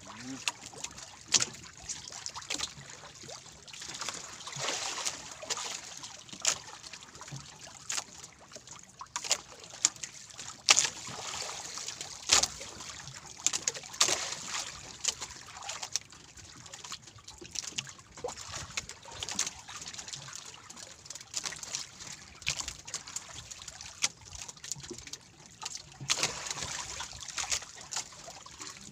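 Water trickling and splashing at the side of a small wooden outrigger boat as a fishing longline is pulled in by hand, with scattered sharp clicks and knocks.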